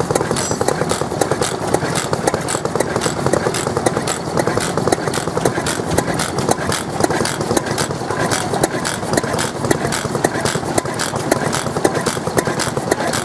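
Petter stationary oil engine running steadily, with a fast, even clatter from its valve gear and exhaust.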